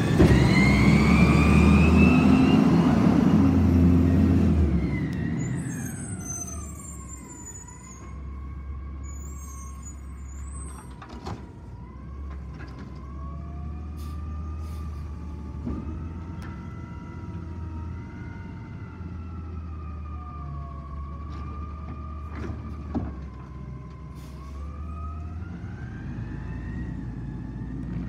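An Autocar Xpeditor garbage truck accelerates away, its engine note rising, for the first five seconds or so. It then runs more quietly at a distance with a steady, slowly wavering whine while its McNeilus Autoreach arm lifts and dumps a cart, with a few clanks.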